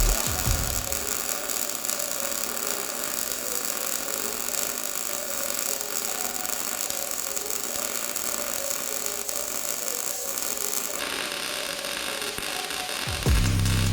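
Titanium MIG 140 wire-feed welder arc crackling, a dense, steady run of rapid crackles while a practice bead is laid; the high hiss thins out near the end.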